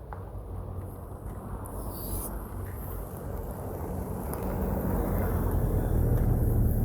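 A truck's engine drawing near, a low steady hum that grows steadily louder.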